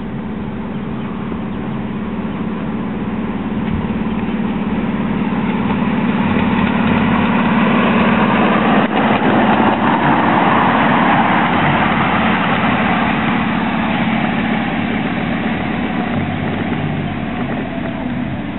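Ride-on miniature model InterCity 125 locomotive running by on its track with a steady mechanical drone. It grows louder to a peak about halfway through as it passes close, then fades as it moves away.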